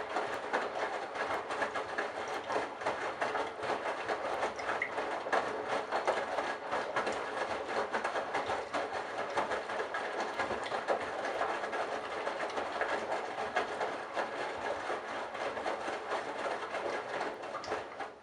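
Candy Bianca washing machine working through its wash cycle: a steady rushing, crackly noise for many seconds that cuts off suddenly.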